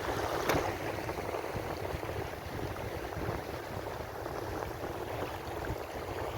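Ocean waves washing against the shore in a steady rush of surf, with a brief louder break about half a second in.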